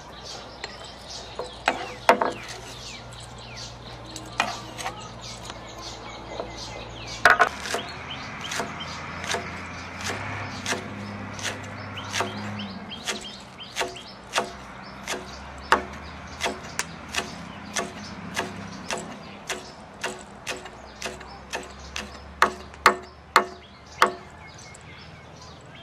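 Cleaver chopping spring onions on a thick round wooden chopping block: sharp knife strikes on the wood, sparse at first, then a steady run of about two chops a second from about a third of the way in.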